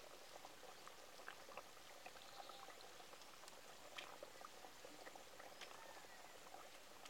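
Faint bubbling of thin curry boiling in a wok on a wood-fired clay stove, a soft steady hiss with scattered small pops.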